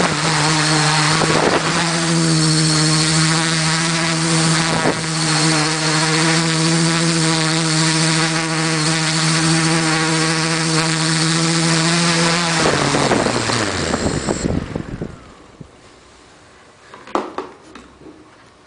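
Quadrotor's electric motors and propellers running with a steady hum, heard from the camera mounted on the craft. About 12 seconds in the motors wind down, the pitch falling until they stop. A single sharp knock comes about 17 seconds in.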